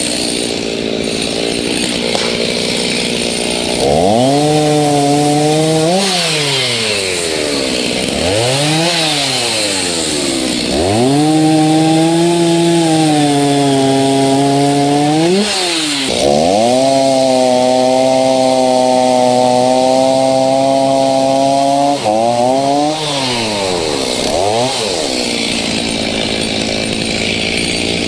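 Stihl MS 290 Farm Boss chainsaw bucking a dead pine trunk. It is revved up and held at full throttle for three cuts, the longest about six seconds, with the pitch sagging slightly under load. Between cuts it drops back to idle, with a few short blips of the throttle.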